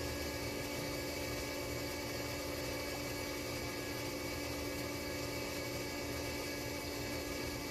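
An above-ground pool's filter pump running with a steady hum and a few fixed tones, over faint water noise.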